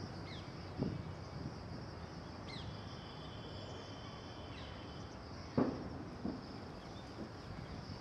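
Outdoor ambience: a steady high insect drone, with a few short chirps and a thin whistle from small birds in the middle. A dull thump comes about five and a half seconds in.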